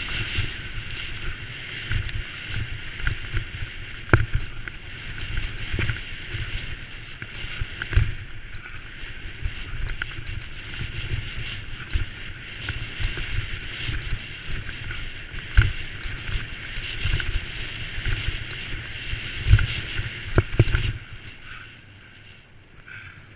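Mountain bike riding fast down a rough, muddy woodland track: a constant rattling rumble with wind on the microphone, broken by sharp knocks as the bike hits bumps and drops. Near the end it goes much quieter as the bike rolls onto smooth tarmac.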